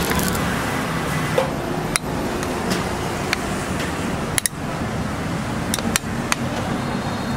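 Metal kitchenware clinking: a metal bowl and spatula knock against an aluminium pot while marinated chicken pieces are scooped. There are several short, separate clinks over a steady background noise.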